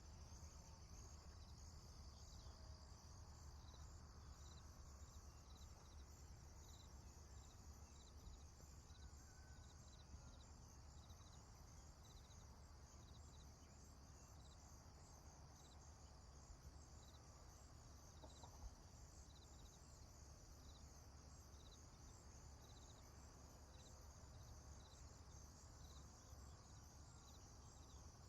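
Faint prairie ambience: insects chirping in a steady high-pitched chorus with evenly repeated chirps, over a low rumble. A bird calls faintly once or twice.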